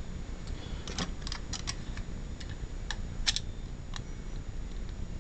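Scattered light clicks and taps, about ten of them at uneven spacing, from small objects being handled at a workbench, over a faint low hum.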